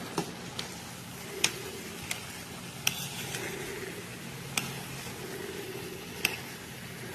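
Seasoned ground beef sizzling in a pan while being stirred, with a utensil knocking against the pan about seven times, irregularly spaced. The meat is being cooked through after the fat has been drained.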